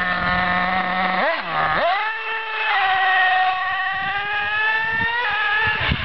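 Radio-controlled buggy's small nitro engine buzzing under throttle. Its pitch dips and swoops about a second in, then climbs and holds high before dropping near the end.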